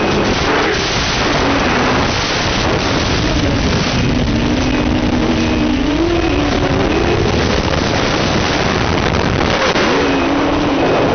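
Drone's electric motors and propellers whining, the pitch falling, holding low, then rising and falling again as the throttle changes, over a steady rushing hiss.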